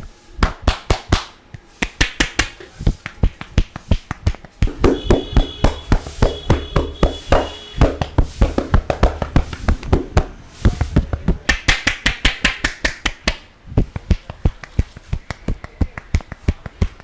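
Rapid hand tapping and slapping on a head during an Indian barber's head massage. The strikes come in quick runs of about six or seven a second, with brief pauses between runs.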